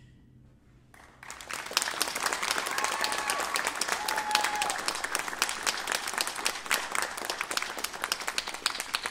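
The band's last chord fades out, and about a second in audience applause breaks out and keeps going, with a few cheers.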